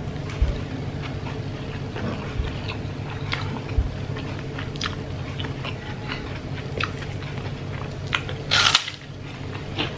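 Close-up chewing of rice and fried chicken with small wet mouth clicks, then about eight and a half seconds in a loud crunch as she bites into a crispy kerupuk cracker. A steady low hum sits underneath.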